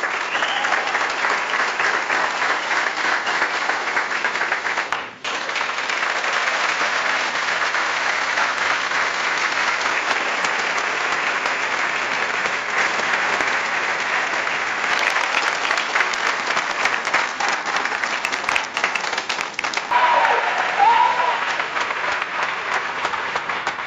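Audience applause: dense clapping from a large crowd, made of several applause clips joined together, with a brief break about five seconds in. A crowd voice calls out over the clapping near the end.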